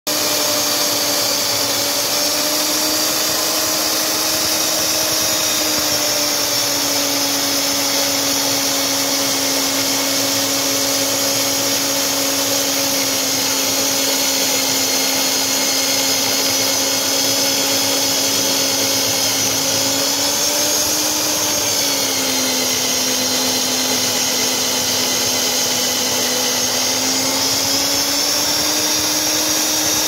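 Stand-mounted electric diamond core drill running steadily as its wet core bit cuts into a concrete slab. The motor's whine dips a little in pitch twice and climbs back near the end.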